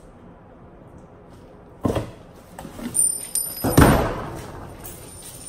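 A large box being moved and set down on a hard floor: a thump about two seconds in, then knocks and a loud bang near four seconds in that dies away briefly.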